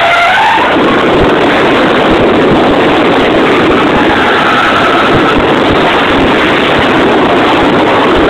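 Mazda RX-8's rotary engine running hard with its tyres skidding through a drift, heard from inside the car as a loud, dense, unbroken wash of noise.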